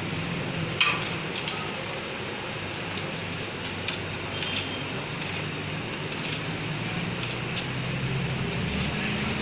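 A few light metallic clicks and clinks of tools and bicycle parts being handled, the sharpest about a second in, over a steady background hiss and low hum.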